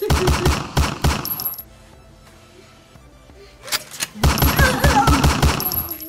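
Rapid machine-gun fire, a sound effect for a pretend gun, in two bursts of about six or seven shots a second, the first at the start and the second from about four seconds in. A voice cries out over the second burst.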